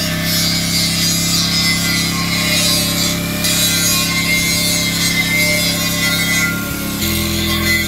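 Angle grinder grinding down the lip on the cut edge of a steel well casing: a steady, loud grinding rasp over the motor's hum.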